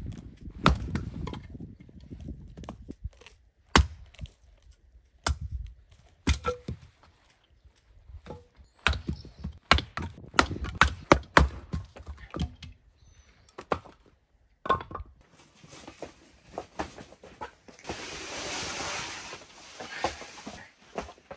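Small hatchet chopping and splitting short firewood rounds: a string of sharp chops and cracks at irregular intervals. Near the end come a few seconds of steady rustling.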